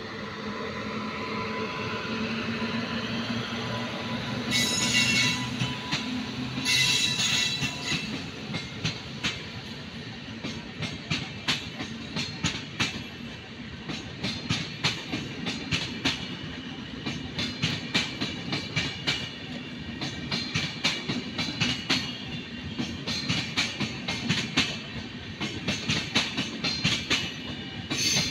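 Indian Railways passenger train hauled by an electric locomotive passing at speed. A steady electric hum fades over the first several seconds, with two brief shrill squeals about five and seven seconds in. After that the coaches' wheels click rhythmically over the rail joints.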